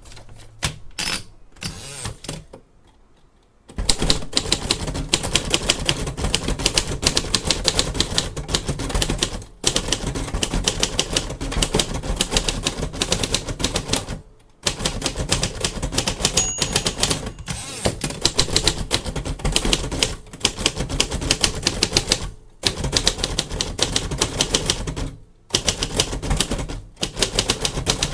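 Late-1940s/early-1950s Royal Quiet De Luxe manual typewriter being typed on. A few scattered clicks give way to fast, steady runs of keystrokes, broken by brief pauses.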